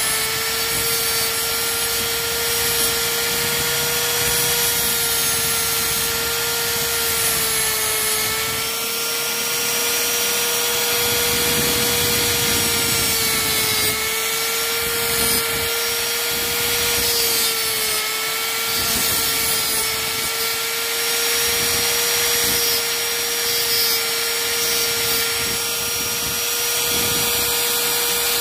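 High-speed rotary tool with a small abrasive cut-off disc running at a steady whine, grinding against the splined sprocket shaft of an engine. Its pitch dips briefly a few times as the disc bears on the metal, over a constant rasping of abrasive on steel.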